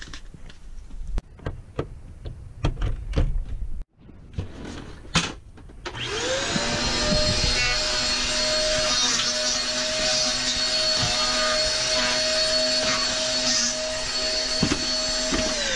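Scattered clicks and knocks of handling, then a bagless upright vacuum cleaner switches on about six seconds in. Its motor whine rises to a steady pitch, runs steadily, and winds down with falling pitch as it is switched off near the end.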